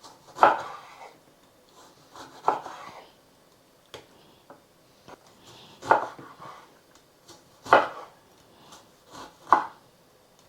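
Kitchen knife slicing a lemon, each stroke ending in a knock on the board: five louder cuts about two seconds apart with a few fainter taps between.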